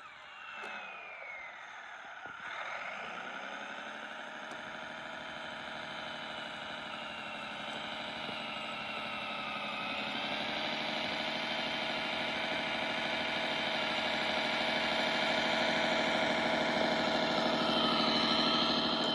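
Kyosho Blizzard radio-controlled tracked snow vehicle running under power. Its drive drops in pitch and recovers in the first couple of seconds, then holds a steady note with slow small swings, growing gradually louder.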